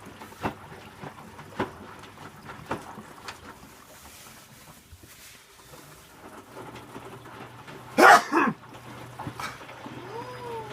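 A pet gives one loud call about eight seconds in, then a short rising-and-falling meow near the end. Under it, faint regular knocks early on, and a low steady hum that starts a little past halfway.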